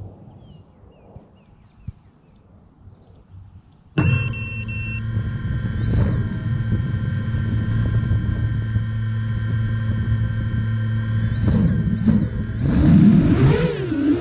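A 7-inch FPV quadcopter's EMAX ECO 2807 brushless motors start suddenly about four seconds in and spin at a steady idle hum, with a few short throttle blips. Near the end the pitch swings up and down as the throttle is worked.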